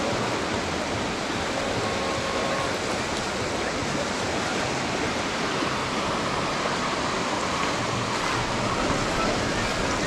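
Ocean surf washing steadily onto the beach, with some wind.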